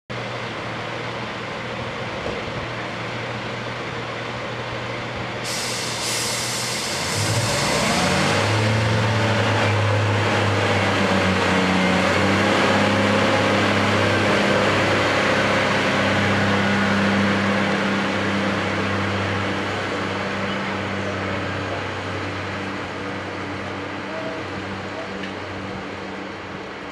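Class 142 Pacer diesel railbus idling at the platform, then a sudden hiss of air about five seconds in as the brakes release. Its underfloor diesel engines then rev up and grow louder as the train pulls away, and the sound fades over the last several seconds as it draws off.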